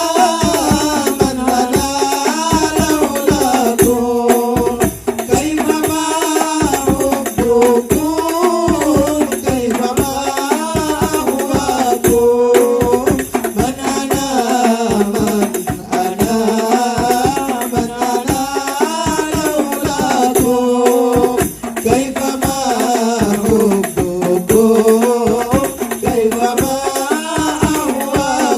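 Hadroh music: rebana frame drums and jingles beat a steady, dense rhythm under a wavering, ornamented melody line that carries on without a break.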